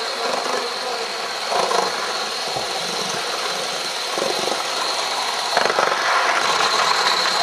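Gauge 1 live-steam model locomotives running on a track layout: a steady mechanical running noise, with a few brief louder patches.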